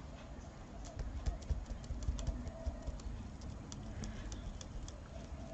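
Faint handling noise from hands holding freshly glued paper flower layers: scattered small clicks and light rubs over a low rumble.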